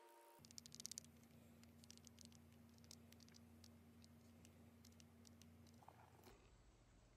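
Near silence: faint room hum with a quick cluster of light clicks about half a second to a second in, then a few scattered ticks, from hands handling a small jointed wooden lure.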